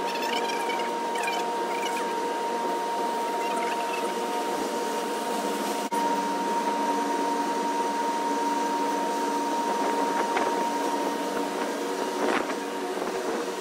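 Ship's machinery running with a steady whirring drone and several held tones, sped up about fourfold.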